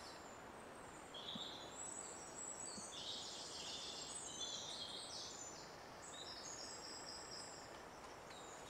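Quiet woodland ambience with small birds singing high, rapid trilling phrases that overlap from about a second in until near the end, over a faint steady hiss.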